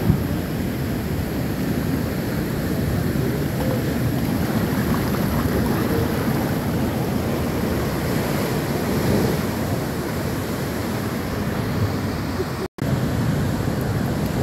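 Heavy surf from a spring high tide breaking against a sea wall: a deep, steady rush of water with no pauses. The sound cuts out for an instant near the end.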